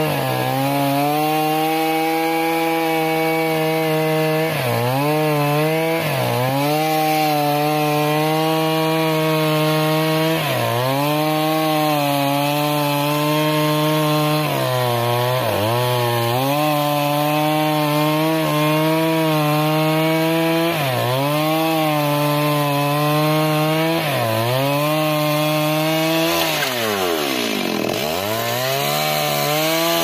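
Stihl chainsaw cross-cutting a thick tree trunk at full throttle. Its pitch dips briefly several times as the chain bogs down in the wood. Near the end, as the cut goes through, the revs fall away steeply and climb back up.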